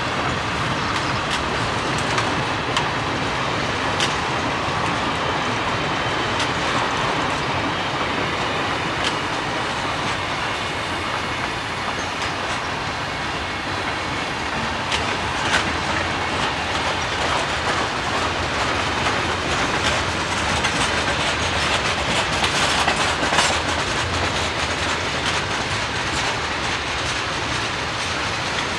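Freight train of tank cars and covered hoppers rolling past: a steady noise of steel wheels on rail, with scattered sharp clicks and knocks, a little louder about two thirds of the way through.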